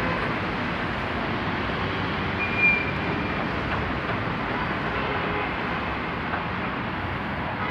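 Steady road traffic noise from a busy city street, with one short high-pitched squeak about two and a half seconds in.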